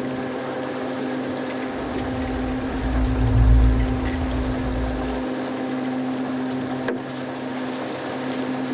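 Fishing boat's engine running steadily, a constant hum, with a low rumble swelling about two seconds in and dying away by five seconds.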